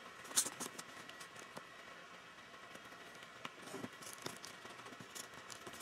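Faint rustling and a few light clicks of a small cardboard tag being handled, over quiet room hiss.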